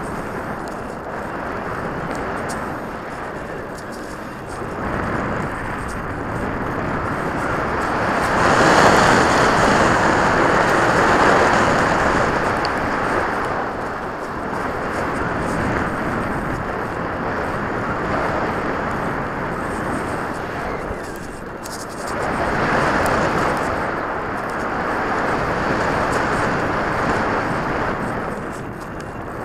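Airflow rushing over the microphone of a camera mounted on a radio-controlled model plane in flight: a steady noise with no clear tone that swells and fades several times.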